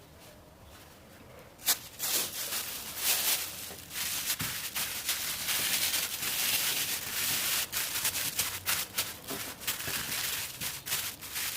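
Kitchen food-preparation sounds: a sharp click about two seconds in, then a steady run of quick scraping and rustling with many small ticks until near the end.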